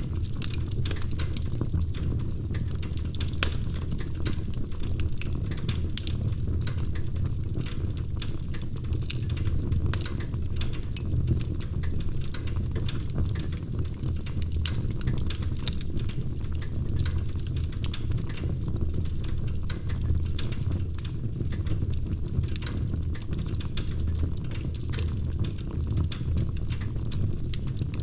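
Wood fire burning in a fireplace: frequent sharp crackles and pops at irregular intervals over a steady low rumble.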